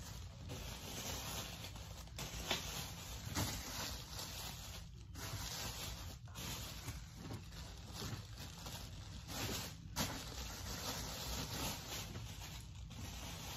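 Packaging rustling and crinkling as it is handled by hand, with a few light knocks.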